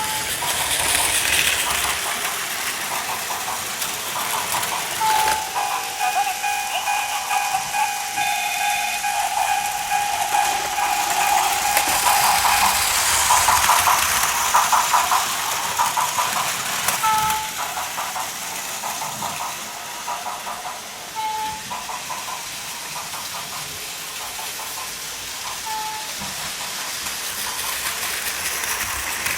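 Plarail plastic toy trains running on a layout: small battery motors whirring and wheels clattering over the plastic track, loudest as a train passes close about halfway through. Short electronic beeps come every few seconds, and a held electronic tone sounds for several seconds in the first half.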